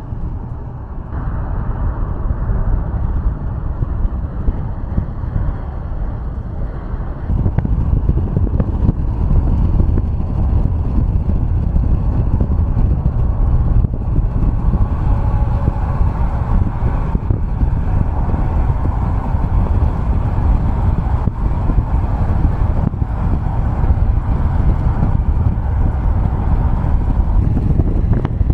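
Car driving at highway speed: a steady low rumble of road and engine noise. It grows louder about a second in and again about seven seconds in, then holds.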